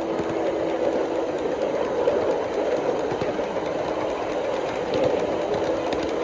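A 3.5-inch gauge LBSC Juliet miniature coal-fired steam locomotive running along the track, its exhaust beating in a fast, steady chuff with the rattle of wheels on the rails.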